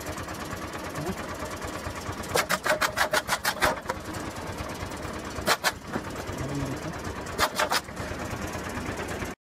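Bricks and a metal scaffold frame falling onto the road: a quick clatter of a dozen or so sharp knocks, then a few more scattered knocks later, over the steady noise of a car.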